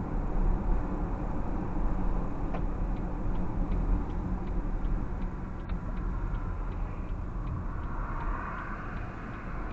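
Car cabin road and engine noise picked up by a dashcam, a steady low rumble. From a couple of seconds in until about two-thirds through, a turn-signal indicator ticks evenly about three times a second as the car slows and turns.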